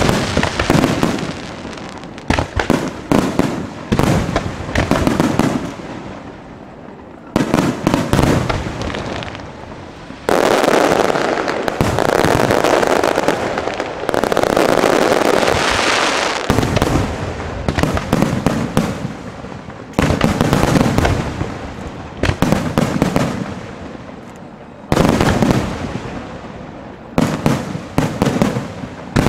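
Aerial fireworks shells bursting in loud, rapid clusters of bangs. About ten seconds in, the reports merge into a dense, continuous crackle lasting some six seconds.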